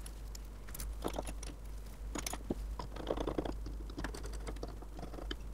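Scattered light clicks and taps of small screws and washers being handled and fitted to fasten the frog of a Stanley Bailey No. 5 hand plane.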